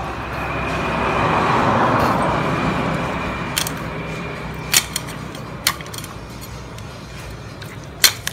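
A hand-forged cleaver chopping Muscovy duck on a wooden chopping block: four sharp chops, spaced about a second apart, with the loudest near the end. In the first few seconds a passing vehicle swells and fades under them.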